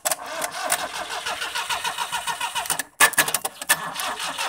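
Starter motor of a 1983 Daihatsu Charade cranking its three-cylinder engine, worked by a wire jumped onto the starter because the original starter cable was chewed through by rats. It cranks in two long bursts with a short break about three seconds in, and the engine does not catch.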